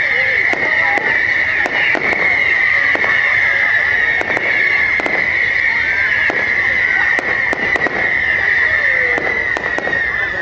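A fireworks display going off: a dense, irregular run of bangs and crackles over a steady high hiss that never stops.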